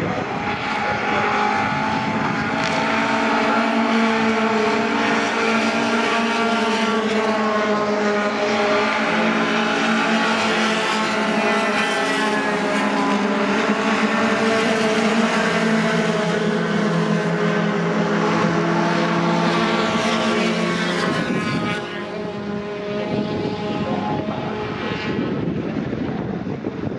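Engines running steadily, a droning hum of several held tones that shift in pitch about a third of the way in and again later, then drop away a little over halfway through.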